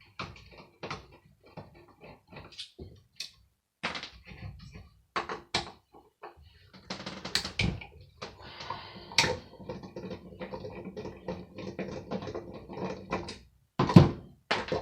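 Hand tools working on the metal motor of a hand air dryer: scattered clicks and knocks, then a longer stretch of steady mechanical rattling for several seconds, and a loud knock near the end.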